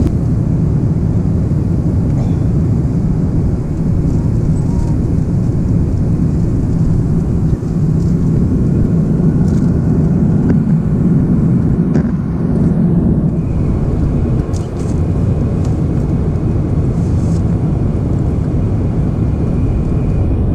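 Steady low cabin noise of an Airbus A330-200 in flight: engine and airflow noise heard inside the passenger cabin, with a few faint clicks.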